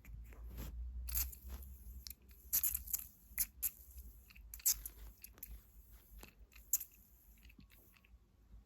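Fingernails tapping quickly on small objects close to the microphone. The taps come as irregular crisp clicks, with several louder ones in the middle and one near the end.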